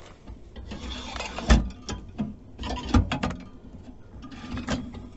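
Damp wood chips rustling and scraping as they are tipped and handled in a smoker's metal chip tray. Two sharp knocks of the metal parts, about a second and a half apart, stand out from the rustle.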